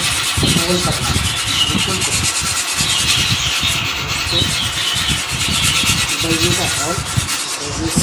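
A metal file rasping back and forth around the edge of a hole cut in a terracotta clay pot, scraping the fired clay smooth with continuous rough strokes.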